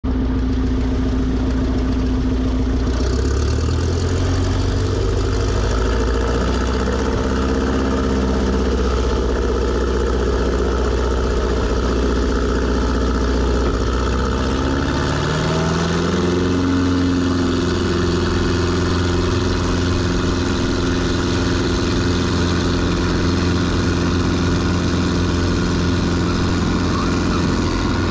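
Propeller and four-cylinder Lycoming engine of a 1965 Mooney M20E running at low power. About halfway through the throttle is advanced and the pitch rises, then holds steady at takeoff power during the takeoff roll.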